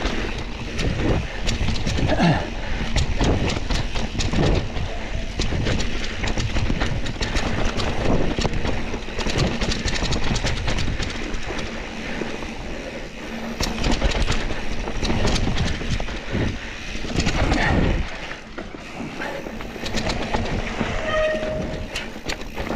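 Mountain bike rolling fast down a rocky, rooty dirt singletrack: tyres crunching over dirt and stones while the bike's frame and chain rattle with a constant stream of knocks.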